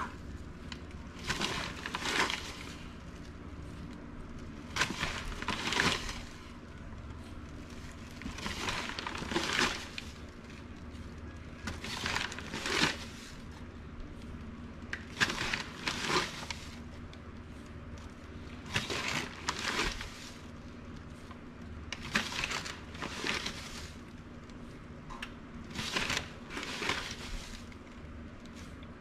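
Granulated sugar scooped from its bag with a measuring cup and poured into a pot of vinegar, cup after cup: pairs of short crunchy, rustling sounds about every three to four seconds, eight times.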